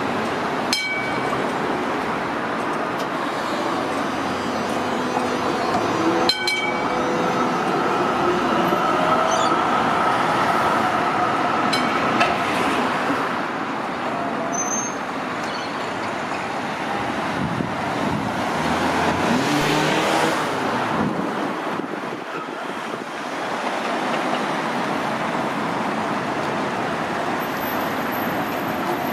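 Street traffic with a Z-class tram pulling away from its stop and crossing the intersection: a few sharp clicks from its wheels in the first dozen seconds and a drawn-out whine for several seconds, while cars pass steadily.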